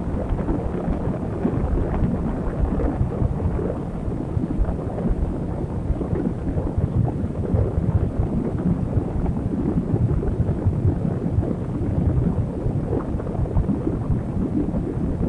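Strong sandstorm wind buffeting a phone microphone: a constant low, gusty rumble.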